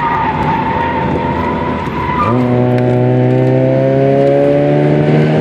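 Tyres of a Nissan B13 squealing in a steady tone through a track corner, heard from inside the cabin. About two seconds in the squeal fades and the car's GA16 1.6-litre four-cylinder engine comes in hard under acceleration, its pitch climbing steadily.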